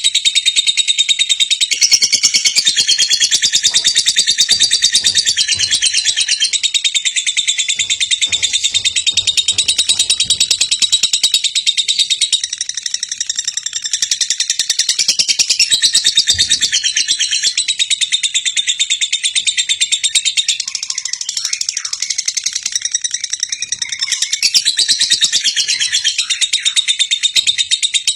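Lovebird 'ngekek': one long, unbroken, high-pitched chattering trill of rapid notes, going on without a pause for nearly half a minute, then cutting off suddenly.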